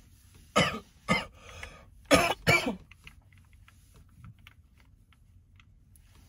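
A man coughing hard from blunt smoke in a smoke-filled closet: four loud coughs in about two seconds, then a few faint clicks and taps.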